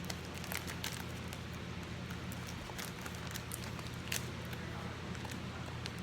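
Scattered light clicks and crinkles of card packaging being handled, over a steady low hum.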